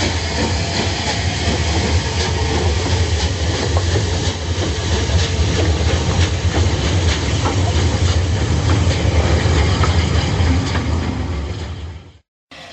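OO gauge model steam locomotive (a Bulleid light pacific) running on track: a steady low motor hum with the wheels clicking over rail joints and pointwork. It fades away near the end as the locomotive pulls off into the distance.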